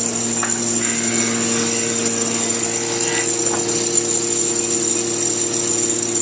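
A power tool's electric motor running steadily: a constant hum with a high whine, no change in speed.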